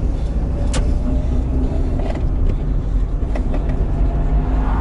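A car heard from inside its cabin while driving: steady low engine and road rumble, with a faint whine slowly rising in pitch and a few light clicks.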